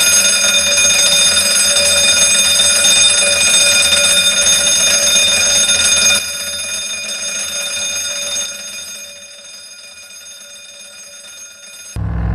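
A bell ringing continuously with a steady metallic tone. It drops in level about six seconds in and fades away over the next few seconds.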